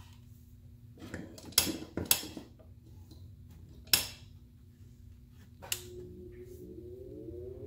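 Sharp clicks and clinks of metal tweezers and a circuit board being handled on a workbench. Near the end a switch clicks and a fume extractor fan starts to spin up, its whine rising steadily in pitch.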